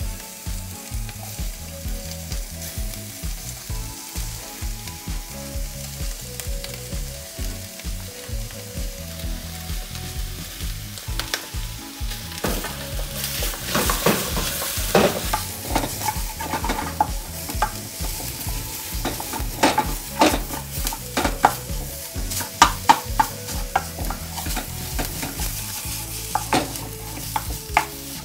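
Sausage meat, onion and green pepper sizzling as they fry in a pan, while a wooden spoon breaks up and stirs the meat. The scraping and knocking of the spoon against the pan gets louder and busier about halfway through.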